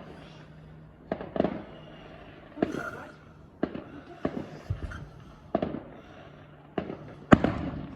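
Fireworks going off: a string of sharp bangs about a second apart, each with a short crackling tail, the loudest near the end.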